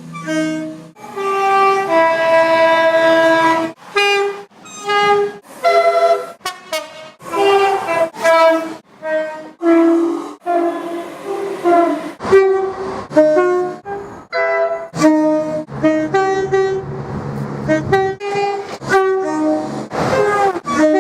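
British train two-tone horns, one train after another: a rapid run of short blasts alternating a high and a low note, with one longer held blast about two seconds in.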